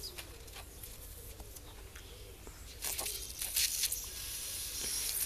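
Air hissing in uneven spurts from a small puncture in an inflated wheelbarrow inner tube, starting about three seconds in. The leak is in the sidewall, which the owner suspects was pinched by a tyre lever.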